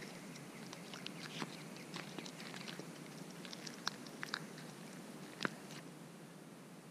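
Faint scattered clicks and scrapes of a metal spoon in a plastic cup of Greek yogurt and pomegranate seeds, mixed with chewing.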